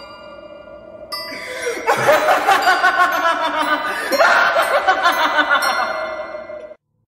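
Horror intro sound effect: ringing chime tones, then about two seconds in a loud, dense, layered swell that surges again about four seconds in, before cutting off suddenly near the end.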